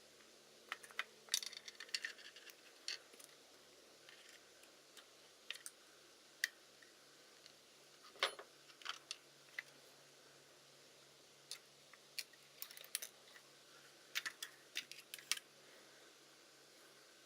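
Irregular light clicks and small metallic taps, a few at a time with short pauses between: small parts and tools being handled and set down.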